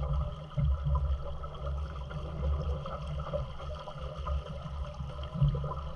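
Wind buffeting the camera microphone in an uneven low rumble, over water lapping around the boat.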